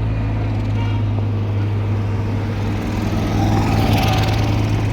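Engine of heavy road-construction machinery running steadily, with a hiss building up about three seconds in.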